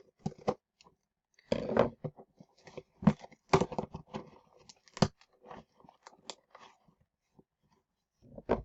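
A toy box being opened by hand: irregular crackles, rustles and sharp clicks of the packaging being pulled and torn, the loudest bursts about a second and a half, three and a half, and five seconds in.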